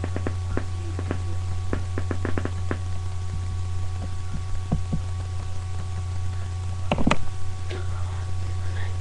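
Irregular sharp clicks and knocks over a steady low electrical hum, with a louder cluster of knocks about seven seconds in.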